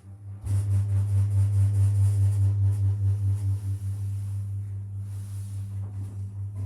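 Lift machinery giving a loud, steady, low electrical hum that swells about half a second in and eases slightly around four seconds in.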